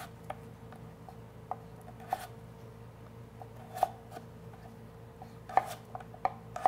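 Chef's knife cutting through a potato and knocking on a wooden cutting board: irregular, unhurried knocks, with the sharpest a little past halfway and another near the end.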